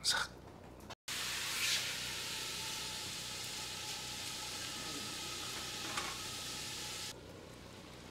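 Marinated bulgogi beef and vegetables sizzling in a hot pan, a steady hiss that starts suddenly about a second in and cuts off near the end. A brief clatter of a spatula against the bowl at the very start.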